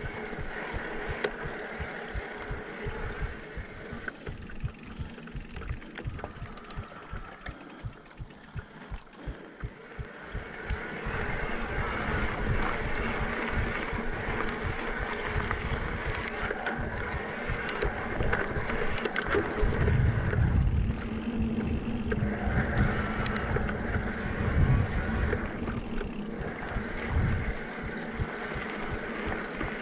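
Cannondale Moterra 2 electric mountain bike ridden along a dirt trail: tyres rolling and crunching over the dirt and the drive motor running, with wind rumbling on the microphone. It is quieter with low rhythmic thumps at first and gets louder from about ten seconds in.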